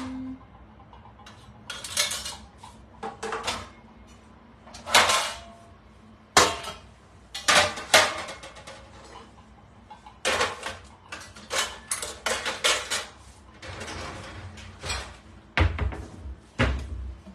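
Metal baking pans and dishes clattering as they are rummaged through and pulled out: a string of separate clanks and knocks, with a couple of heavier thuds near the end.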